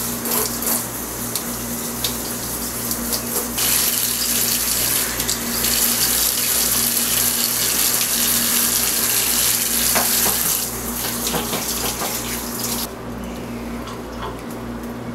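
Tap water running into a sink, the flow growing stronger and weaker several times, then dropping off near the end, over a steady low hum.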